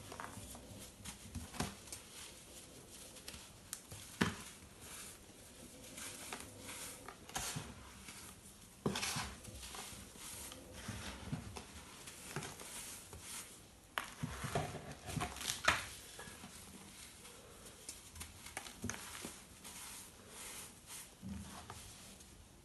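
Hands crushing and crumbling a crunchy baked baking-soda bundt: irregular soft crunches and crackles as chunks break apart, with crumbs and powder falling.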